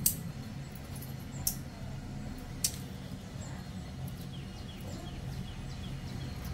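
A few sharp clicks, about a second apart, over a low steady hum, with faint short high chirps in the middle.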